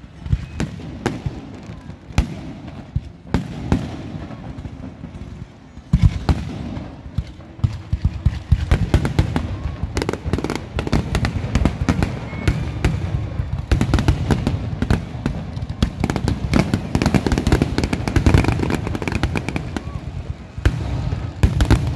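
Aerial fireworks: a few separate bangs at first, then from about six seconds in a dense, rapid run of shell bursts and crackling that keeps building, with a brief lull near the end.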